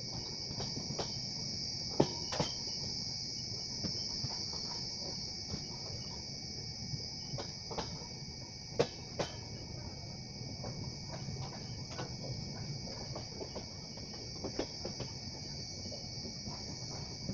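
Steady, high-pitched drone of an insect chorus, with a low rumble and scattered sharp clicks beneath it.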